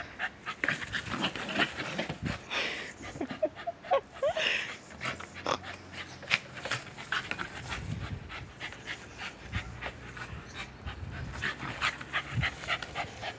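A Welsh corgi panting while she noses and pushes a soccer ball over grass, with many short knocks and scuffs. Two brief high squeaks come about four seconds in.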